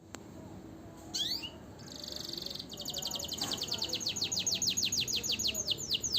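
Young songbird practising its song: a short sweeping call, a fast high trill, then a long run of rapid downward-sweeping notes, about six a second, growing louder.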